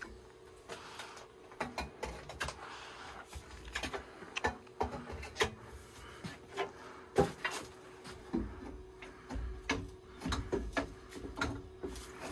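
Irregular metal clicks and knocks of brass fittings, valve parts and tools being handled and fitted together on a copper water line, over a faint steady hum.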